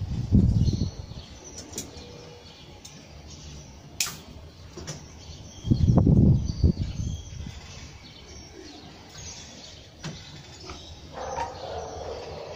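Birds chirping in the background, with two loud, dull low rumbles, about a second in and about six seconds in, and one sharp click at about four seconds.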